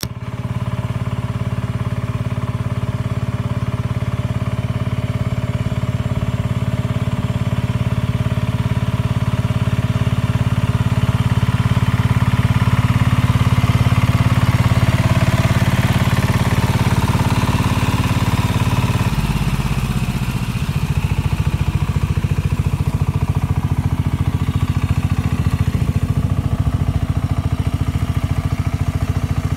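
Power tiller's single-cylinder diesel engine running steadily while its rotor churns a flooded paddy field. Its note shifts lower about two-thirds of the way through.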